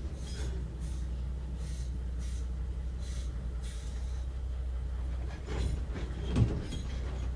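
Interior sound of an Ikawa Line passenger coach running along the track: a steady low rumble with light, regular clicks of wheels over the rail. There is a louder clunk and rattle about six and a half seconds in.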